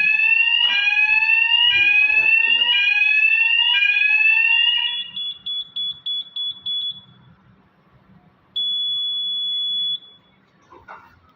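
Electronic fire alarm sounder being tested through its tones: a loud rising sweep repeating about once a second, then a rapid pulsed beep about four times a second, then after a short pause one steady tone for about a second and a half. A faint click follows near the end.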